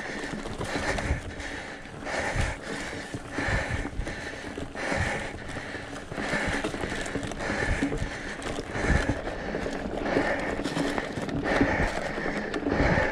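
Mountain bike climbing a rocky dirt singletrack: tyres crunching and the bike knocking over rocks and roots, with the rider's hard breathing coming in a steady rhythm about every second and a half.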